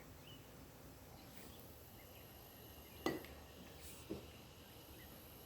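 Faint background ambience with a few faint high chirps, broken by two soft knocks about a second apart near the middle.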